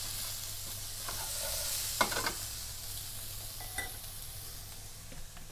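Chicken, eggplant, tomatoes and green chili peppers sizzling in oil in a frying pan, the sizzle fading gradually, with two short knocks about two seconds in.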